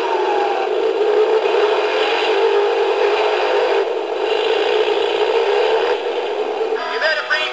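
Animated Santa-on-a-motorcycle toy playing its recorded motorcycle engine sound through a small speaker, the pitch wavering up and down. About seven seconds in it switches to a synthesized Christmas song.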